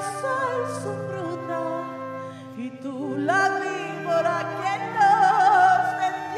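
A singer's voice through a handheld microphone, sung in a wavering, opera-like style over steady held backing tones. The voice climbs about three seconds in and is loudest near the end.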